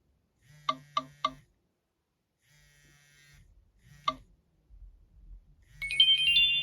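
Nokia E65 mobile phone playing a built-in ringtone: three quick electronic notes about a second in, another single note around four seconds, then a quick rising run of high notes near the end that holds on. Under the notes is a low buzz in pulses, like the phone's vibrating alert.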